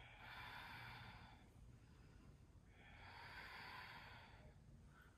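Faint, slow breathing by a person holding a yoga pose: two long breaths of about a second and a half each, soft and airy with no voice.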